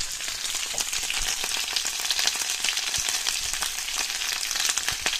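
Sliced potatoes frying in hot pork fat in a full frying pan: a steady sizzle with dense, fine crackling. This is the characteristic frying sound that shows the pan is hot enough and the potatoes are frying properly.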